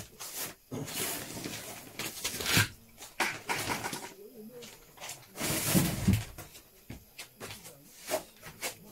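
Plastic storage boxes and clutter being shifted and handled: irregular rustling, scraping and knocks, with a heavier clatter a little past the middle.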